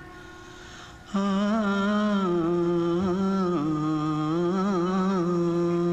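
A low male voice humming a slow tune in long held notes, stepping between pitches, after a breath-length pause about a second in.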